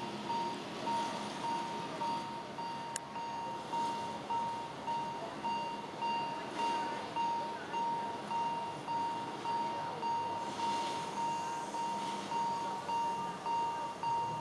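Level-crossing warning bell dinging in a steady, even repeat over the low running noise of a slow-moving steam train, a 1912 Lima Shay locomotive hauling wooden carriages.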